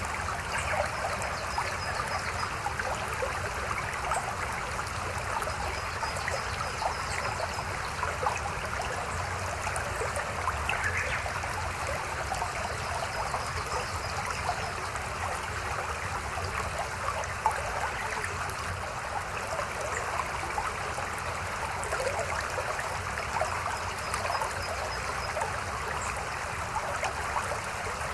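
Mountain stream babbling steadily, a continuous wash of water with many small splashes and bubbles.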